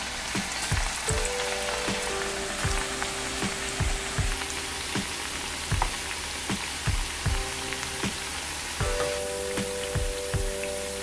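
Potato chips deep-frying in hot oil, sizzling steadily, over background music with a regular soft beat.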